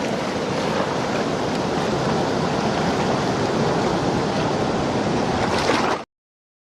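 Rushing floodwater of a swollen river, a steady even rush of water noise. It cuts off suddenly near the end.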